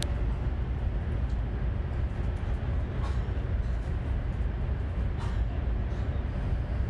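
Steady low rumble and rush of a Chinese high-speed bullet train, heard from inside the passenger cabin while cruising at close to 300 km/h. There are a couple of faint ticks partway through.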